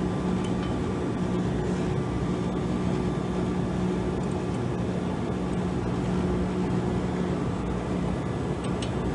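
Steady hum of running refrigeration machinery, with a steady low tone and a fainter higher tone over a broad whir, and a few faint clicks.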